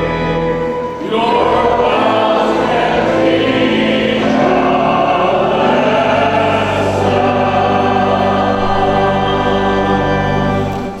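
Church choir singing a short sung response over a held chord; the voices come in about a second in and stop just before the end.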